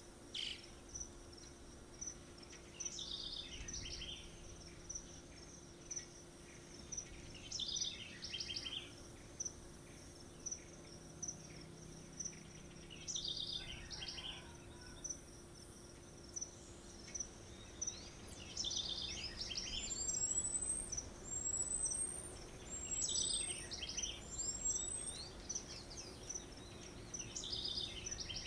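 Steady high insect trilling, with a bird's song phrase repeating about every four to five seconds. About twenty seconds in, four short high rising whistles come about a second and a half apart.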